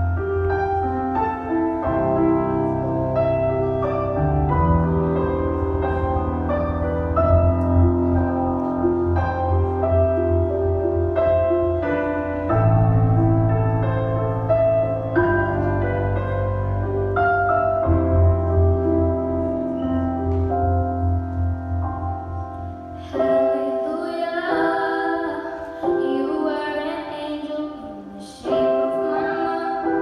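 A slow piano accompaniment with a young girl singing over it; near the end the low piano notes drop out and the voice stands out more.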